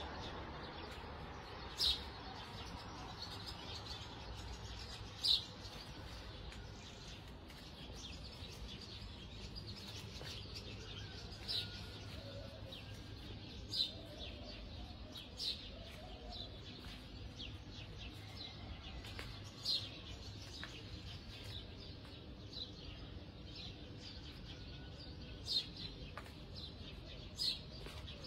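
Short, high bird chirps every few seconds over a low steady hum.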